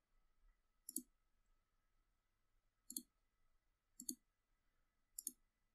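Four computer mouse clicks, spaced one to two seconds apart, each a quick press-and-release pair, over near silence.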